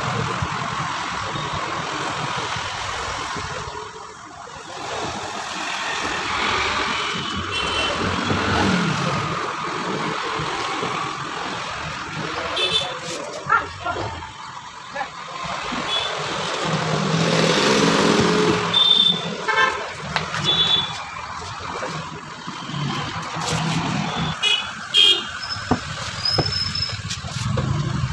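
Road traffic running past, with several short vehicle horn toots in the second half.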